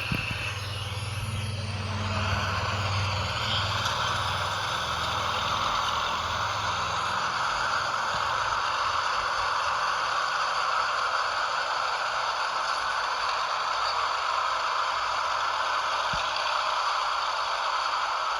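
Toy RC truck running, its small electric motor and gearbox giving a steady whirring hiss with rattling and scraping. A low hum fades out about three seconds in.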